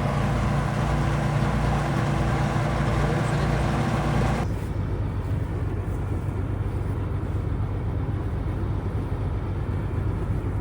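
Vehicle engine running steadily. About four and a half seconds in the sound changes abruptly: the higher part drops away and a lower hum carries on.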